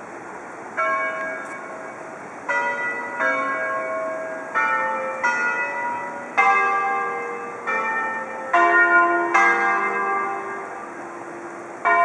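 Several church bells of different pitch ringing in an uneven sequence, a strike roughly every second, each note ringing on and fading under the next.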